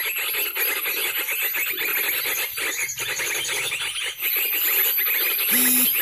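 Recorded bird calls played as a trapping lure from a small speaker: a fast, continuous chirping trill with a steady high whine above it. A short low tone begins near the end.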